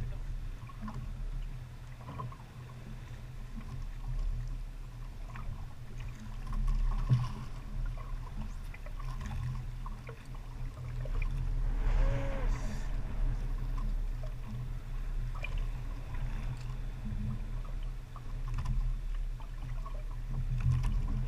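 A small boat engine running low and steady, a constant rumble with a few faint clicks over it.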